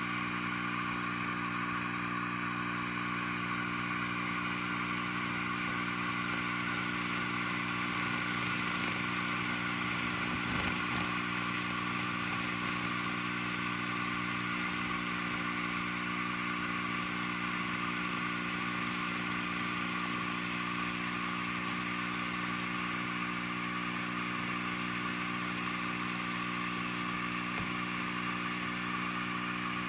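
SFX 2000 W laser rust remover running steadily: a constant electrical hum with a high hiss over it.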